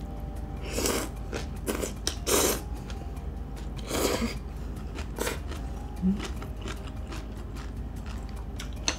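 Close-miked eating of instant ramen noodles with a dumpling: a series of short slurps and chewing sounds, about five in all. The loudest come about two and a half and four seconds in.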